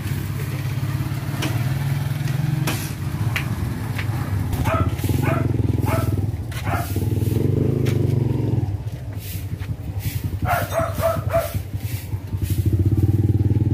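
Motorcycle engine running steadily with a low hum that eases off for a few seconds past the middle and comes back near the end.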